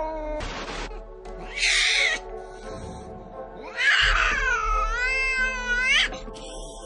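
An angry cat hissing briefly, then giving one long wavering yowl that rises sharply in pitch at the end, over steady background music.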